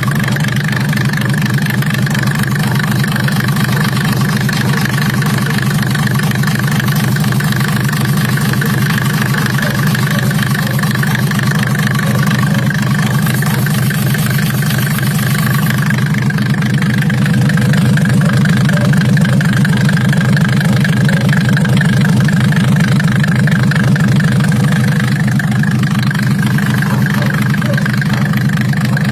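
Mercedes-Benz diesel engine idling steadily, with an even, rapid pulsing of its firing, a little louder in the second half.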